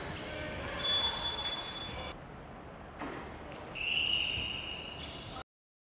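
Live game sound on an indoor basketball court: ball bouncing and two high squeals of about a second each, one early and one near four seconds in, over a low hall ambience. The sound cuts off abruptly about five and a half seconds in.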